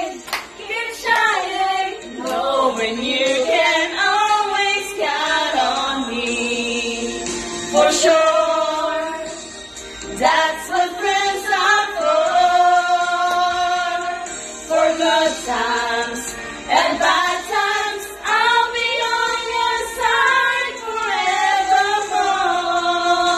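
Several women singing together into handheld karaoke microphones, with long held notes and sliding pitches.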